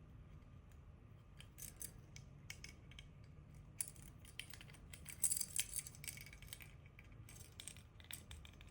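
Small plastic Tobot keycap figure being handled and worked by hand: scattered light clicks and small rattles, thickest about five to six seconds in.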